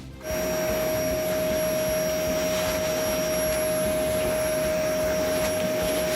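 A motor-driven air tool running steadily: a rush of air with a steady whine, switched on just after the start and cut off near the end.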